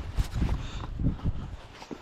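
A hiker's footsteps on a wet stony path, a crunch or knock about every half second, over wind rumbling on the microphone.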